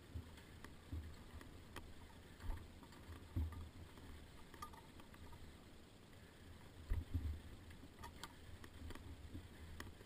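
Off-road dirt bike engine running at low revs on a rocky climb, with short throttle bursts about three and a half and seven seconds in, and scattered sharp clicks and knocks as the tyres and bike strike the rocks, heard from the rider's helmet camera.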